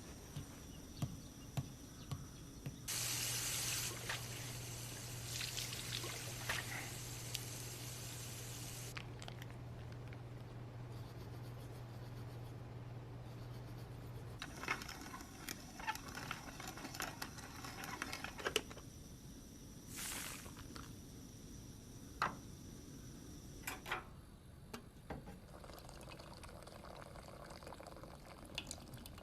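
Water running and pouring, with a steady low hum under it for about ten seconds, followed by scattered small clicks and knocks of handling.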